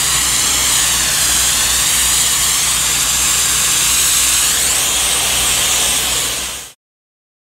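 Ghibli DHR 8 mobile steam generator blasting high-temperature steam through a hand lance: a loud, steady hiss over a low hum. It cuts off abruptly near the end.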